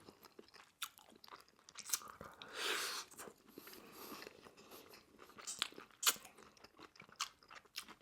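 Close-up crunching and chewing of Korean fried chicken: sharp crackles from biting through the crunchy coated skin of a chicken thigh, then chewing.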